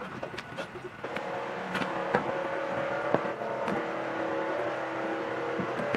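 A motor drones steadily from about a second in, growing louder near the end, with scattered clicks and knocks of hand tools on wood.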